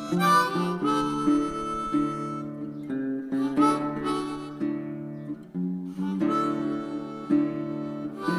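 Background music: a harmonica playing held notes over acoustic guitar.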